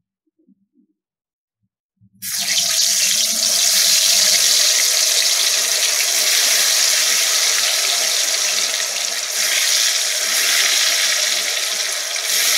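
Marinated potato pieces hitting hot coconut oil in a kadai, setting off a loud, steady frying sizzle that starts suddenly about two seconds in. The moisture on the potatoes makes the oil sizzle hard.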